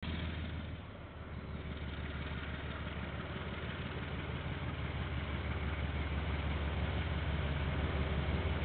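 Diesel locomotives of a KiwiRail train running past, a low engine drone that grows steadily louder as they approach. The sound is dull and thin, as picked up by a security camera's microphone.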